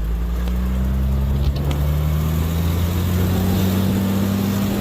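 Car engine held at high revs during a burnout on gravel, the spinning tyre hissing under the engine. The engine pitch climbs a little over the first couple of seconds, then holds steady.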